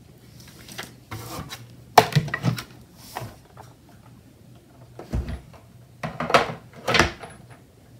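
Hands handling paper and clear acrylic cutting plates and setting things down on a wooden tabletop: rustling with several sharp knocks, the loudest about two seconds in, a dull thump about five seconds in and two more knocks near the end.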